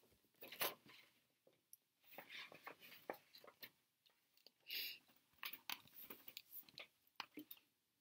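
Hardcover picture book being handled and opened, its pages and cover rustling and crackling close to the microphone in short, irregular bursts, with a longer, louder rustle about halfway through. The sound is faint overall.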